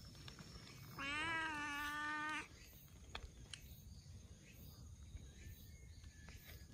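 A tortoiseshell-tabby stray cat gives one long meow about a second in, rising slightly at the start and then holding a steady pitch for over a second, while it is being stroked.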